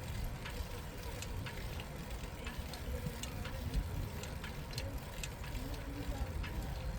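Bicycle ride heard from the rider's own bike: a steady low rumble of wind and tyres on the path, with scattered light clicks.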